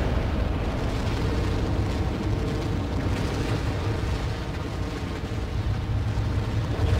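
Steady deep rumbling sound effect on an animated soundtrack, with no clear pitch or rhythm.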